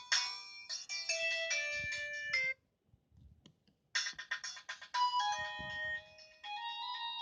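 Megafon TDS 12-1 polyphonic ringtones played on an Explay SL240 mobile phone. One melody cuts off about two and a half seconds in. After a pause of about a second and a half with a few faint clicks, the next ringtone starts.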